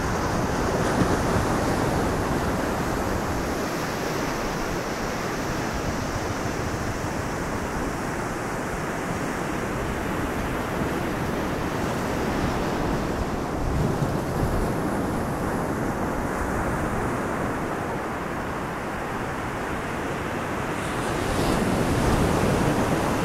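Steady wash of ocean surf with wind on the microphone, growing a little louder near the end.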